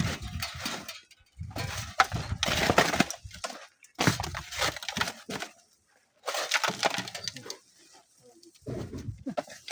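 Sand and stones crumbling and sliding down a sand cliff, a rushing, crackling noise in repeated bursts of a second or two with short gaps between.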